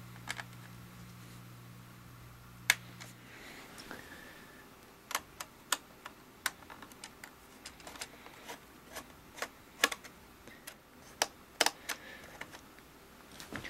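Irregular sharp metallic clicks and taps of a Phillips screwdriver working the screws of the RAM access door on the bottom of an aluminium iMac. The clicks come thickest in the second half. A low hum in the background stops a few seconds in.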